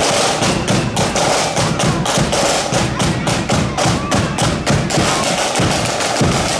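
Marching band's drums beating a fast, steady march rhythm, about five strokes a second.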